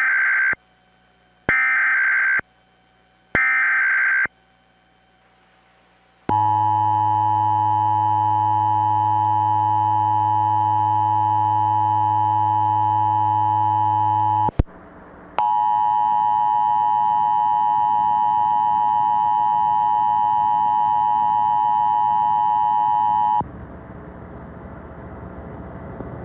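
Emergency Alert System broadcast test: three short bursts of the digital SAME header data tones, about a second apart. Then comes the steady two-tone EAS attention signal, which breaks off with a click about halfway through, resumes, and stops near the end, leaving a low hiss.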